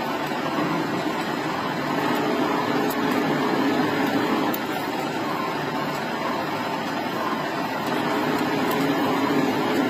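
Metal lathe running steadily while its cutting tool turns down a steel bar, shearing off a continuous spiral chip: a steady machine drone with slight swells in loudness.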